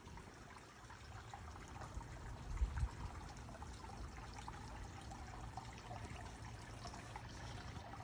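Faint, steady trickling of running water, with a soft low thump a little before the middle.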